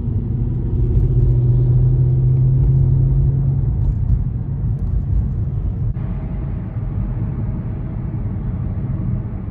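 Car cabin noise while driving: a steady low rumble of engine and tyres, with an engine hum strongest in the first few seconds, and the road noise changing in tone about six seconds in.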